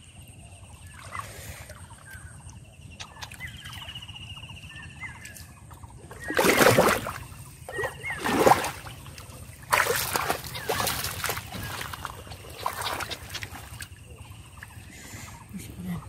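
Hands and legs splashing and sloshing through shallow, muddy water choked with water hyacinth while groping for catfish. The loudest splashes come in a few bursts through the middle.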